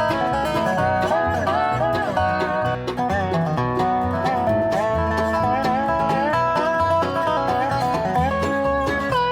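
Background music: an upbeat plucked-string tune with a melody line that bends in pitch over a repeating bass beat.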